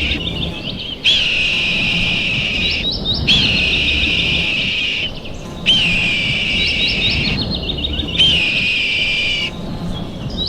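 A looped bird-like chirping call, a short high warble with quick rising flicks, repeating about every two and a half seconds over a low rumble.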